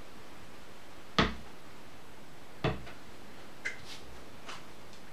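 Two sharp knocks on a tabletop, about a second and a half apart, then a couple of fainter taps, as cards and dice are handled on the table.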